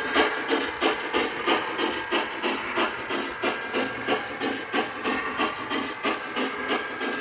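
Lionel B&O EM-1 model steam locomotive chuffing as it runs: a steady rhythm of about three hissing chuffs a second.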